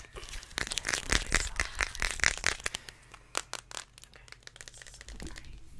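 A small packet crinkled and worked between the fingers close to an ASMR microphone, giving rapid, irregular crackles that thin out after about three seconds.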